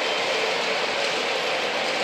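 O-gauge model freight cars rolling on three-rail track: the metal wheels make a steady rolling noise.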